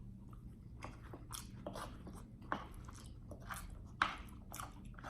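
Close-miked eating: a person biting and chewing food with irregular short wet clicks and crunches, two sharper ones about two and a half and four seconds in.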